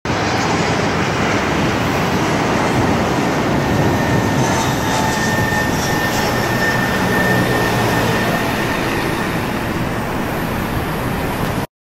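Jet airliner's engines at high thrust during takeoff: a loud, steady rushing noise with a faint high whine, cutting off abruptly near the end.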